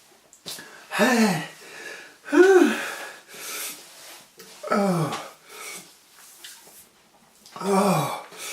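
A man moaning and groaning in pain from the burn of a ghost pepper he has eaten: four short moans, each rising and falling in pitch, with heavy, wheezy breathing between them.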